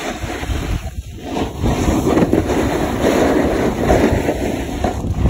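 Wind buffeting the microphone of a phone carried at speed down a ski slope, mixed with the hiss of snow scraping under the board. It dips briefly about a second in, then grows louder and stays strong.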